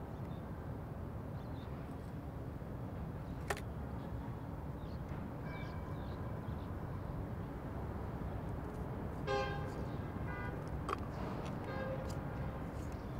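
Steady low rumble of distant city traffic, with a single sharp click a few seconds in. About nine seconds in comes a short car horn honk, followed by a few fainter toots.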